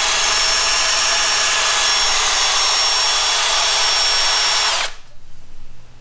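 Power drill spinning a valve-lapping tool, grinding an LS V8 valve against its seat with valve grinding compound to clean and match the seat. A steady whine that cuts off suddenly about five seconds in.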